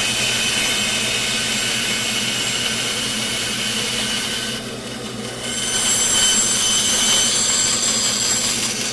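Bandsaw running with its blade cutting through a wooden block: a steady whir with a faint high whine. The sound dips briefly about halfway through, then comes back up as the block is worked back out of the cut with the saw still running.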